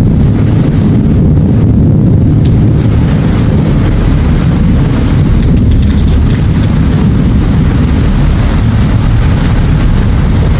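Heavy storm noise: a loud, steady low rumble with a fainter hiss above it.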